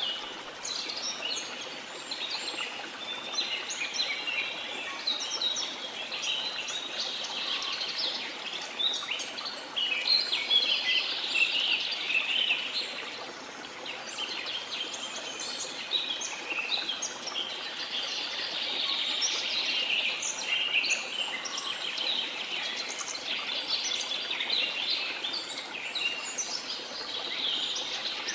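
A dense chorus of many birds chirping and trilling, overlapping without pause, over a faint steady rush of water.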